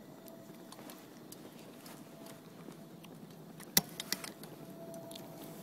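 A quick run of three or four sharp clicks about two-thirds of the way in, the first the loudest, over a faint steady hush.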